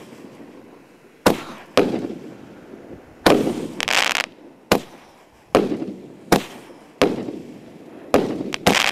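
Armored, a 200-gram consumer fireworks cake, firing shot after shot: about ten sharp bangs at uneven intervals. A couple of them run on into about a second of hissing noise.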